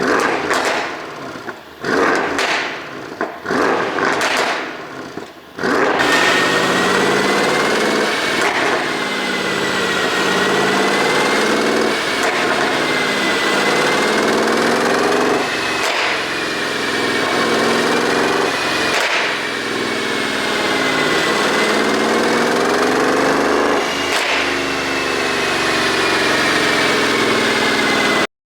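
Mercedes-AMG CLS 63 S twin-turbo V8, tuned for overrun pops, revved in short blips with exhaust pops and crackles. From about six seconds in it runs as a steady drone whose pitch slowly rises and falls, with a sharp exhaust crack every few seconds.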